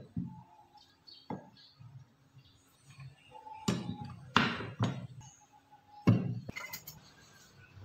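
Pine boards and steel pipe clamps handled on a wooden tabletop: several separate sharp knocks and clunks as the boards are butted together and the clamps are set across the stack. The loudest clunks come past the middle and again near the end.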